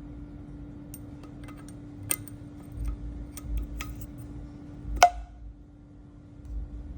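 Small metal tools and parts clicking as they are handled, with one loud, sharp metal clink that rings briefly about five seconds in, over a steady low hum.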